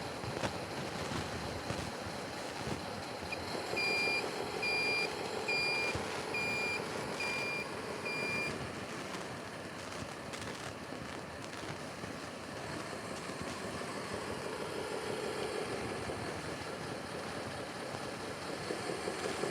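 Radio-controlled truck running with a steady motor and gear whir that swells and fades. It beeps a reversing warning about six times, evenly a little under a second apart, starting about three and a half seconds in.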